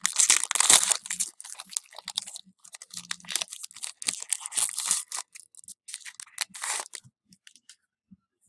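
A baseball card pack's wrapper being torn open and crinkled, with cards handled and shuffled: a dense, irregular crackling that stops about seven seconds in.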